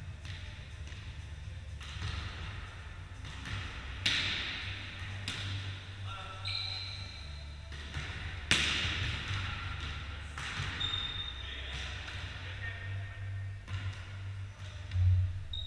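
Volleyball being struck during play in a large echoing sports hall: two hard sharp hits about four and eight and a half seconds in, each ringing on after, with fainter ball contacts between. Short high squeaks and players' voices come between the hits.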